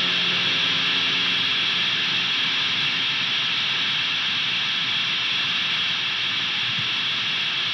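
A steady hiss with no clear tones, strongest in the upper range, cutting off abruptly at the end.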